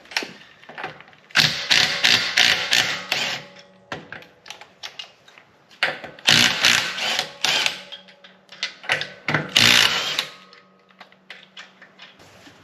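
Ratchet wrench clicking in three bursts of rapid ticks, each a second or two long, with scattered quieter clicks between.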